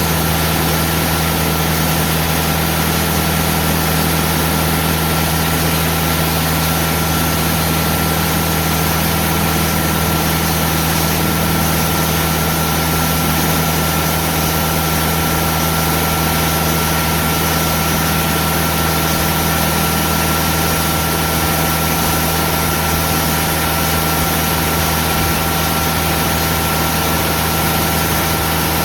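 Timberking sawmill's diesel engine running steadily under load while its band saw blade slowly cuts through very hard, aged live oak, with a thin steady whine over the engine's drone. The cut is very slow because the wood is so hard.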